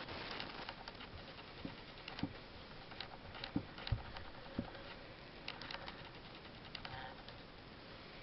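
A foot stepping and pressing down on a plush toy lion: a handful of dull, muffled thumps in the first five seconds, with scattered light clicks and fabric scuffs over a faint hiss.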